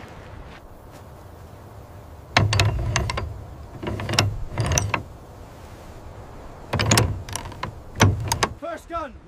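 Cannon's elevating screw mechanism being turned by hand, giving several short bursts of metal clicking and ratcheting after a quiet start.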